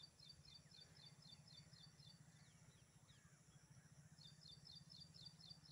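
Near silence with a bird calling: a quick run of high, evenly repeated chirps, about five a second, that stops after a second and a half and starts again about four seconds in, with a few faint falling whistles between. A faint low hum runs underneath.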